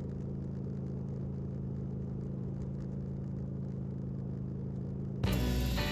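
Harley-Davidson V-Rod Muscle's liquid-cooled V-twin running at a steady speed on the road, heard from a camera mounted on the bike, a steady drone with no change in pitch. Near the end, a louder guitar music track starts suddenly over it.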